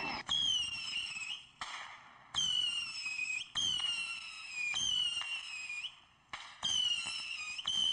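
Whistling fireworks going off one after another: about six shrill whistles in a row, each starting sharply and falling in pitch over about a second.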